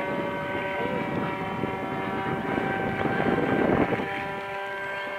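Radio-controlled model airplane flying overhead, its motor and propeller giving a steady, even-pitched drone. A rush of wind on the microphone swells about three seconds in and then falls away.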